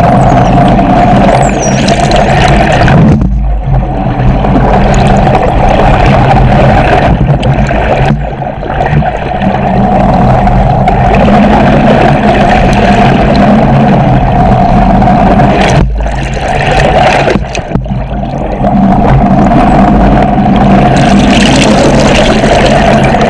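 Boat engine and propeller noise heard underwater: a loud, steady drone with a hum held at a few fixed pitches, dipping briefly a few times.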